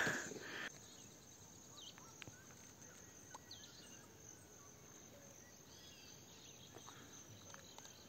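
Faint open-air countryside ambience: a thin steady insect drone with a few scattered faint chirps and light ticks.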